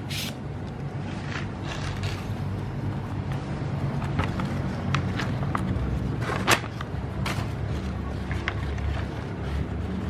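Folding knife blade slicing through cardboard and paper in short strokes, one sharp slice after another, the loudest about six and a half seconds in. A steady low rumble runs underneath.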